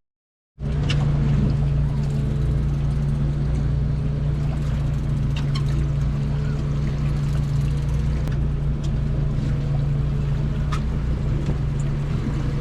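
Boat motor running steadily at low trolling speed, a constant low hum, after a half-second gap of silence at the start.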